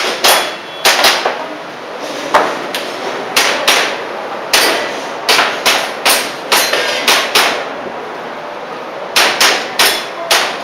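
Airsoft gas pistol firing in quick pairs of sharp clacks, double taps on targets during a timed course of fire, with a pause of about a second and a half near the end before the shooting resumes.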